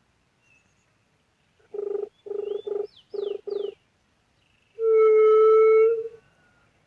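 Low juriti-style dove coos: five short hoots, then about a second later one long, steady, loud hoot. Thin, high, gliding bird whistles sound over the short hoots.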